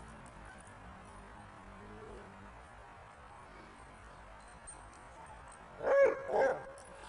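A dog gives two short, high-pitched barks in quick succession near the end, as the dogs scuffle; before that only faint background.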